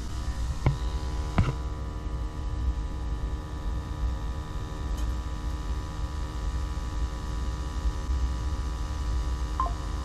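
Steady low rumble and hum of a firing Burnham atmospheric gas boiler, its burner running with a strong chimney draft. Two short knocks come about a second in.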